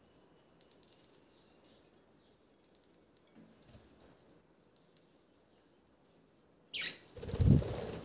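Budgerigars flapping their wings in a loud flurry near the end as a bird flies in close, just after a short falling chirp.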